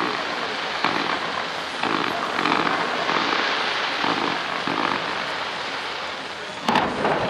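Fireworks crackling and hissing in a dense, rain-like patter as a fountain of red sparks goes up, with a louder sharp burst of crackles near the end.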